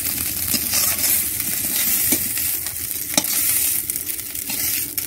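Small mourala fish sizzling steadily in hot oil in a karai as they finish frying crisp. A few sharp clicks and scrapes of the spatula against the pan, the strongest about two and three seconds in, as the fish are lifted out.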